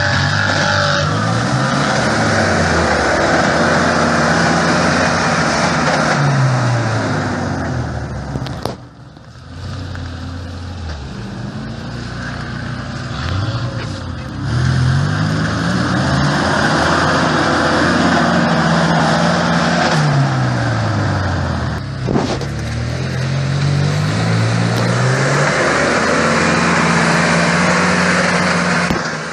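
Off-road 4x4's engine revving up and down again and again under load, its pitch rising and falling every few seconds, with a brief drop in level about nine seconds in.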